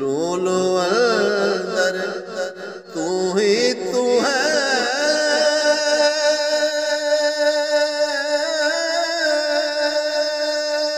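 A man's solo voice singing a Punjabi Sufi kalam in a chanting style, with winding melodic turns for the first few seconds, then one long held note from about five seconds in.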